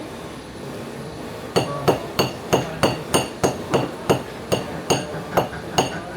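Small hammer tapping a silver ring in quick, even metal-on-metal strikes, about three a second, each with a short bright ring; the tapping starts about a second and a half in.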